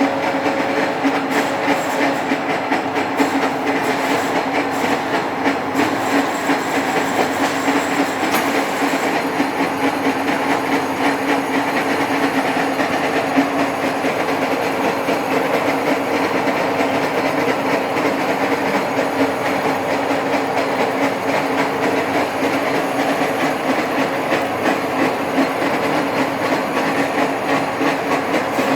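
Milling machine cutting slots in a shaft held in a dividing head, under load. It gives a steady, dense rattle over a constant low hum.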